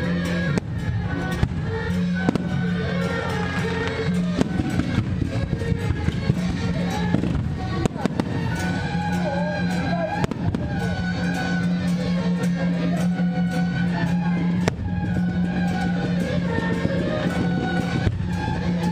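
Aerial fireworks and firecrackers crackling and banging repeatedly over loud music, which has a steady low drone and a wavering melody.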